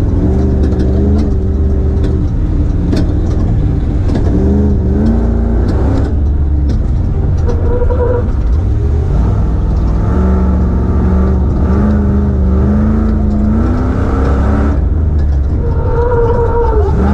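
Engine of the Cyber-Runner off-road truck under hard acceleration, its pitch climbing and dropping back in steps several times as it shifts.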